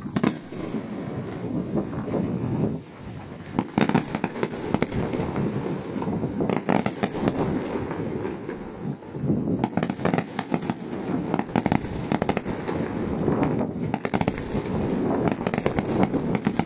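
Aerial fireworks shells bursting one after another, with clusters of sharp crackling pops every few seconds over a continuous rumble of bangs and their echoes.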